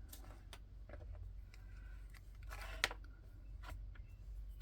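Small plastic bags of diamond painting drills being handled and sorted: faint rustling and light clicks, with a louder rustle ending in a sharp click a little before three seconds in.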